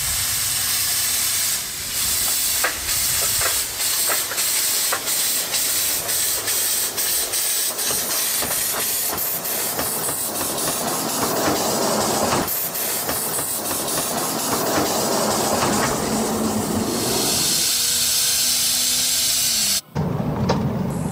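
Small homemade electric toy locomotive running along its miniature track: a steady hiss with many irregular clicks and rattles. Near the end a low hum sinks slightly in pitch, then the sound cuts off suddenly.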